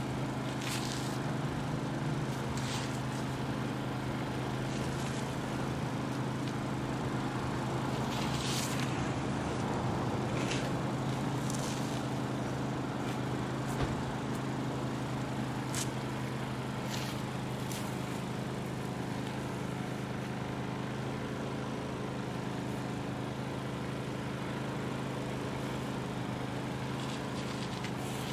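Steady low mechanical hum, like a motor running nearby, holding the same few low tones throughout, with a handful of brief scuffing noises over it.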